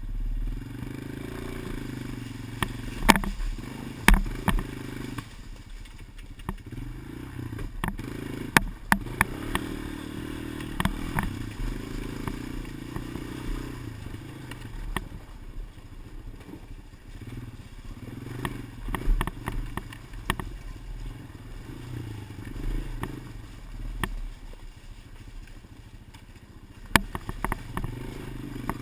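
Irregular sharp clicks and clatters on a GoPro's recording: the camera's clicking-noise fault. Beneath them an engine runs steadily with a low hum, its note rising and falling a little.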